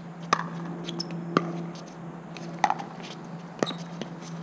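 Pickleball paddles striking a plastic pickleball back and forth in a rally: four sharp pocks about a second apart.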